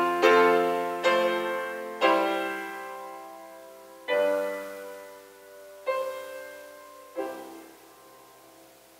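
Grand piano playing slow chords that come further and further apart, each struck and left to die away. The last one, about seven seconds in, rings out and fades as the piece ends.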